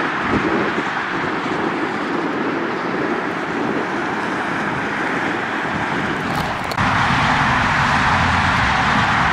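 Jet aircraft engine noise, a steady rushing sound with no clear pitch. It jumps abruptly louder and fuller about seven seconds in.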